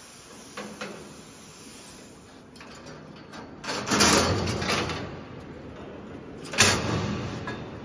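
Cut carbon-steel plate being lifted and shifted on the steel slats of a plasma cutting table, scraping and knocking against them: a few light knocks at first, then two loud scraping clangs, about four seconds in and near the end, each trailing off over about a second.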